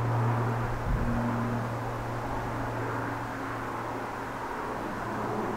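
Pilatus PC-9's turboprop engine and four-bladed propeller in flight, a steady drone with a low propeller hum, slowly fading.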